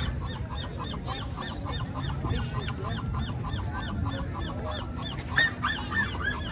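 Birds calling in a fast repeated run of short high calls, several a second, over a low rumble, with a louder call about five seconds in.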